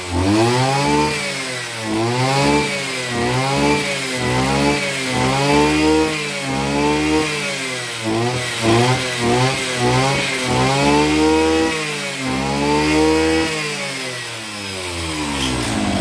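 Robin 302 brush cutter engine being revved up and down over and over, its pitch rising and falling about once a second, then dropping back near the end.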